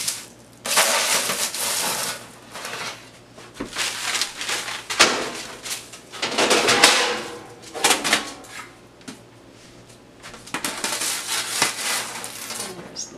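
Metal spatula scraping under bread and parchment paper rustling on a metal baking sheet as baked loaves are slid onto a wire cooling rack, with several sharp knocks of pan and utensil against the countertop.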